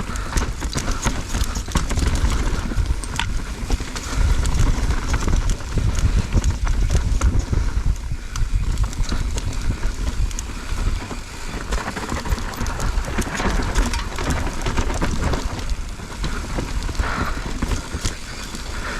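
Mountain bike rolling fast over a rocky dirt trail: tyres crunching and the bike rattling with many irregular clicks and knocks, over a steady low rumble of wind on the chin-mounted action-camera microphone.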